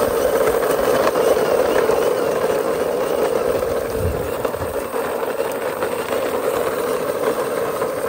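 Plastic toy police car pushed by hand over rough concrete, its wheels making a steady grinding rumble, with a low bump about four seconds in.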